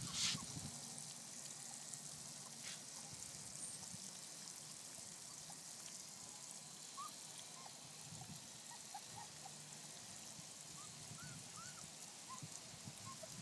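Litter of four-week-old basset hound puppies eating puppy food together from a metal bowl: faint wet chewing and lapping, with a few short, faint squeaks in the second half.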